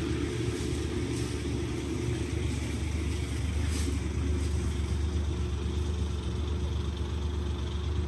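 Small box truck's engine idling with a steady low hum.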